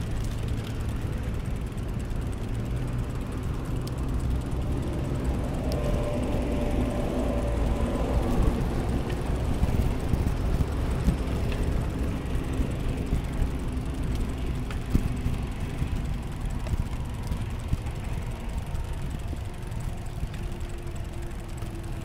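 Steady low rumble of motor traffic, with an engine drone that swells about a third of the way in and then fades.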